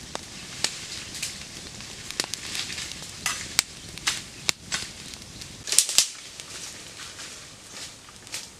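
Open wood fire crackling under green bamboo cooking tubes: a steady hiss with sharp, irregular pops, the loudest pair about six seconds in.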